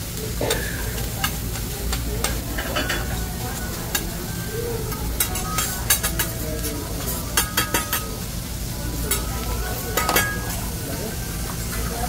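Fried rice sizzling on a hibachi steel griddle while metal spatulas scrape and clack against the hot plate, giving sharp, ringing clicks at irregular moments through the steady sizzle.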